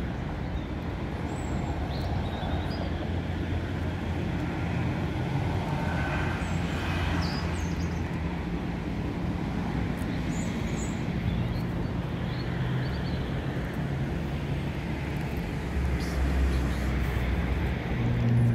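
Steady low rumble of motor traffic in outdoor ambience, with a few faint short high chirps now and then.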